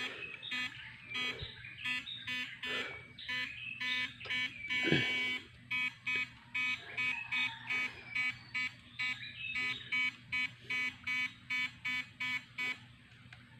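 Electric fishing shocker buzzing in short repeated pulses, about two a second, as it is switched on and off; the pulses stop shortly before the end.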